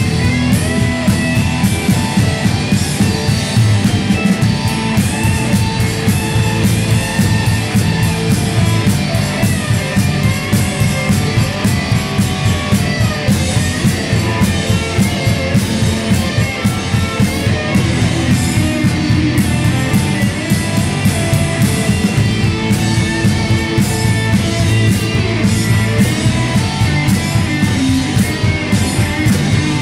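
Rock band playing live: a Telecaster-style electric guitar over bass and a drum kit, with drum and cymbal hits throughout.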